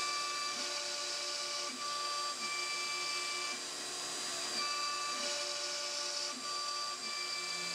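Kronos Robotics KRMx02 CNC router milling grooves in MDF with a 1/8-inch end mill at a conservative 50 inches per minute. The spindle gives a steady high whine, and the stepper motors' tones change pitch about every second as the machine changes direction.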